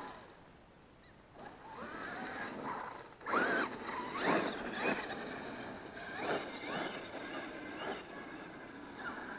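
Traxxas X-Maxx RC monster truck's brushless motor, driven by a Hobbywing MAX6 ESC, whining up sharply in pitch and falling back in a series of hard bursts of acceleration.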